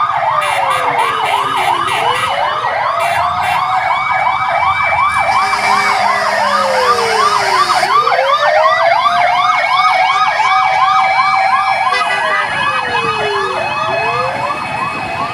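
Several fire truck sirens sounding at once, responding to a fire. A fast yelp cycles about five times a second over slower wails that drop and climb back every few seconds.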